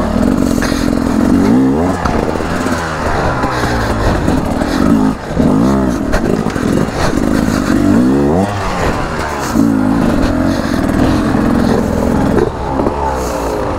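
2023 Beta RR300 two-stroke enduro bike engine revving up and down over and over, its pitch rising and falling every second or so as the throttle is worked through a slow technical section.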